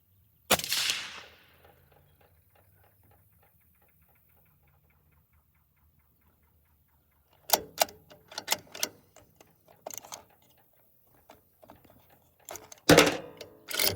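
A suppressed 6.5 Creedmoor rifle shot through a SIG Hexium 30 suppressor, a sharp crack about half a second in with a brief ring-off. Clicks and knocks of the rifle being worked follow, with louder sharp knocks near the end.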